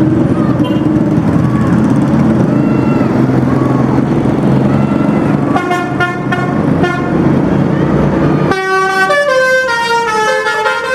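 Telolet basuri multi-tone bus horn: faint horn notes over a loud low rumble, a few stacked horn blasts about six seconds in, then after a sudden cut a quick tune of stepping horn notes over the last couple of seconds.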